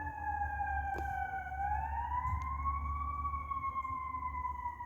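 Fire rescue truck's siren wailing in one slow cycle: its pitch dips slightly, rises over about a second and a half, then sinks slowly back, over a steady low rumble.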